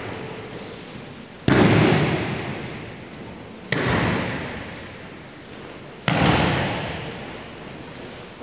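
Three loud thuds of a body slapping down onto foam mats in aikido breakfalls (ukemi), each hit ringing out in the hall's long echo for a couple of seconds.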